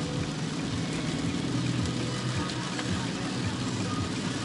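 Heavy rain falling on a car, heard from inside the cabin as a dense steady hiss with fine patters, over the low steady hum of the car's engine running.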